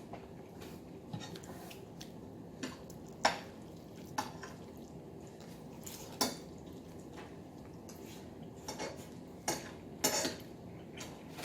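Scattered clinks and taps of dishes and cutlery, irregular, with the sharpest knock about three seconds in, over a low steady room hum.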